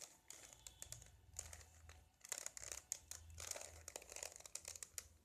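Plastic Rubik's cube layers being twisted in quick succession: a faint, irregular run of clicks and scraping.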